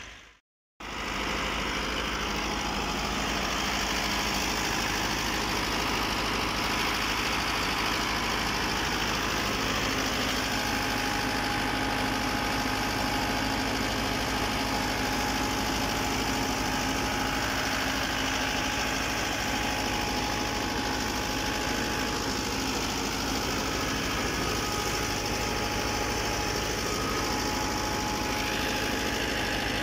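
Massey Ferguson 385 tractor's diesel engine running steadily. It cuts in after a short silent gap near the start.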